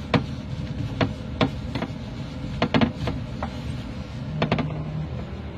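Irregular sharp metallic clicks and knocks as a gloved hand works the clamp on an Airbus A320 galley water filter housing, several close together about two and a half to three seconds in, over a steady low hum.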